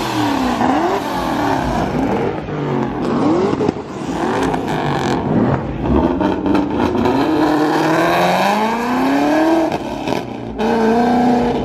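Car engine revving hard, its pitch climbing and dropping several times, with a longer climb in pitch about eight to nine seconds in that falls away.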